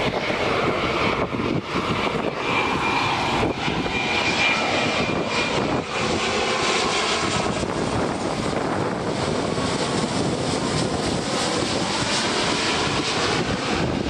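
Boeing 787-8's twin Rolls-Royce Trent 1000 turbofans on final approach, passing low overhead with the landing gear down: a loud, steady jet roar. A thin high whine sits over it from about two to five seconds in, and the tone of the roar sweeps as the plane goes over.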